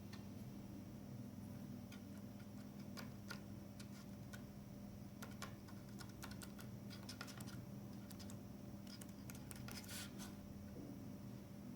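Faint, irregular small clicks and ticks of a surprise egg's plastic capsule and toy pieces being handled, over a steady low hum.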